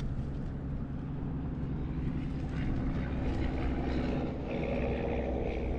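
An engine's steady drone, a hum of several pitches that grows a little louder and fuller in the second half.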